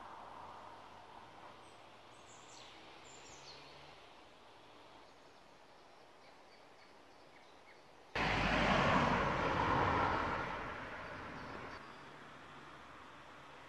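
Quiet outdoor background with a few faint bird chirps. About eight seconds in, a much louder, even rushing noise cuts in abruptly and fades away over the next few seconds.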